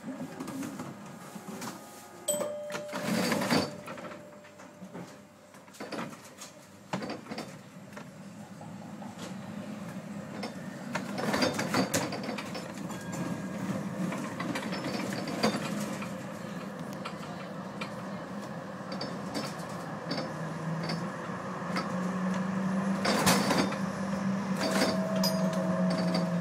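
Cab of a Vienna E1 tram: a few sharp clicks while it stands still, then it pulls away. The running noise builds steadily as it gathers speed, with a low motor hum that rises slightly in pitch and occasional knocks from the wheels on the track.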